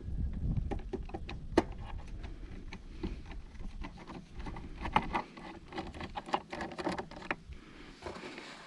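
Irregular light clicks and taps of a hand screwdriver and loose screws being worked at a riding mower's engine cover, with a low rumble in the first half.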